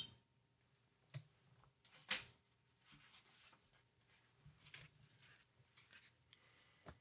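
Near silence: room tone, broken by about four faint, short taps as painting tools are handled on the tabletop.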